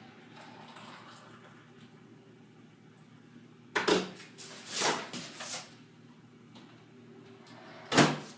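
Sharp knocks and clatters of things being handled, in a cluster about four seconds in and one loud clunk near the end, over a faint low hum.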